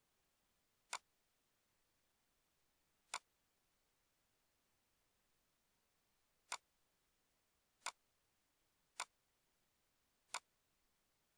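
Six sharp single clicks of a computer mouse, spaced unevenly, over near silence.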